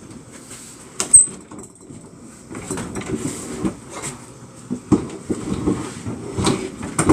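Refrigerator being shoved back toward the wall: irregular scraping and knocking, with a sharp bang about a second in and more knocks near the end.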